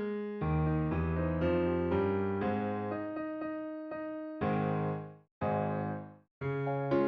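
Background music: a keyboard, electric-piano style, playing sustained chords that change every half second or so, with two brief gaps about five and six seconds in.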